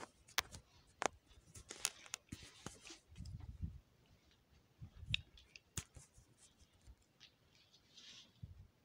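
Handling noise from a handheld phone: faint, irregular clicks, scrapes and rustles, with a few soft low thumps.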